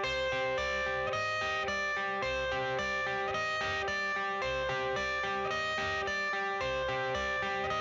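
Background music: plucked guitar notes over a soft low pulse.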